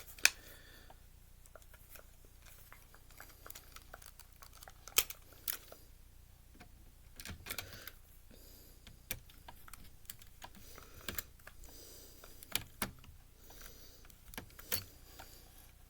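Irregular small clicks and clinks of screws, a screwdriver and plastic and metal parts being handled while a Blu-ray player is taken apart, with a few sharper knocks scattered through.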